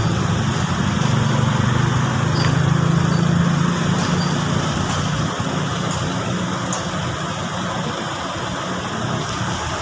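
Komatsu PC200 excavator's diesel engine running steadily, with a deep hum that is strongest for the first five seconds and then eases.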